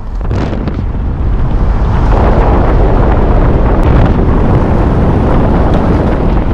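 Heavy wind blowing across the microphone: a loud, steady rush of noise that grows louder about two seconds in.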